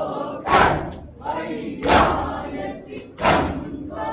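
A large group of mourners beating their chests in unison with open hands (matam), three loud strikes about 1.3 seconds apart. Between the strikes, a chorus of men's voices chants the noha.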